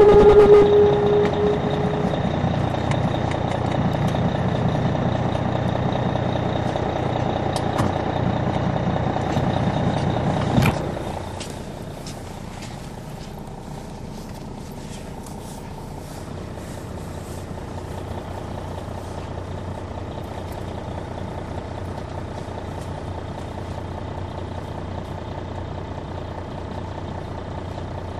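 On board a 2002 MCI D4000 coach with a Detroit Diesel Series 60 engine, running steadily. About ten seconds in there is a sudden short burst of noise, after which the engine runs noticeably quieter and steady.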